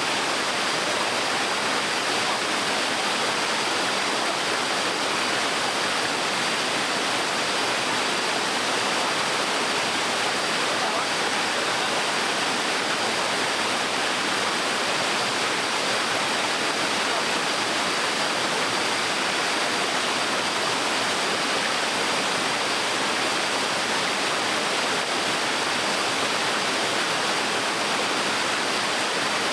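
Small waterfall on a stream, a steady rushing splash of falling water that stays even throughout.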